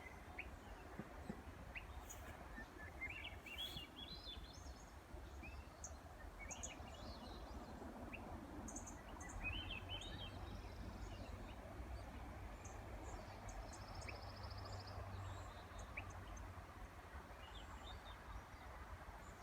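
Songbirds singing. One repeats a phrase of quick notes climbing in pitch every few seconds, among scattered high chips, over a steady low background rumble.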